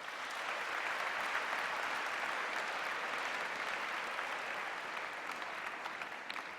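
An audience of students applauding. It starts right away, holds steady, and tapers off near the end.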